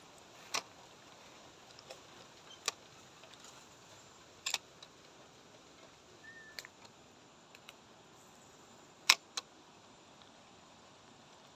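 A few sharp, irregular clicks and taps from handling the fishing rod and camera, the loudest about nine seconds in, over a faint steady hiss, with one short faint chirp near the middle.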